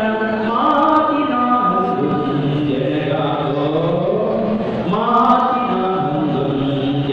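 A man singing into a handheld microphone, amplified over a hall's sound system, holding long notes that slide from pitch to pitch.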